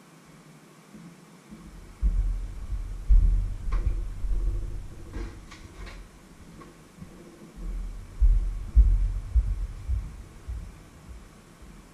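Heavy low thuds close to the microphone, in two spells, like footsteps coming up and walking away. In between are a few light clinks and knocks as a pan is set down in the kitchen sink.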